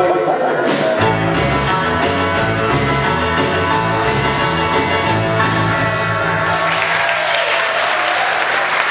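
Electric guitar playing the last bars of an upbeat country rock-and-roll song over bass and drums. The music stops about six and a half seconds in, leaving a final note ringing while audience applause starts.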